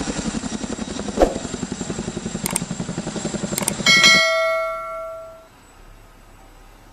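CH-47 Chinook's tandem rotors chopping in a fast, steady beat as it flies overhead. About four seconds in the chopping cuts off and a single bright bell-like notification chime rings out, fading over a second and a half.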